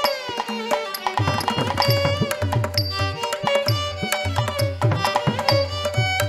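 Carnatic dance accompaniment in raga Madhuvanti, Adi tala: a drum playing a steady rhythm of strokes under a melody on instruments. The drum drops out for about the first second, then comes back in.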